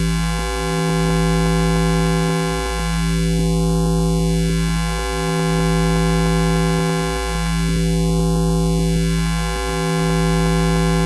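High-voltage electricity sound effect: a steady electrical buzz with many overtones, its tone sweeping slowly up and down and its loudness swelling about every four and a half seconds.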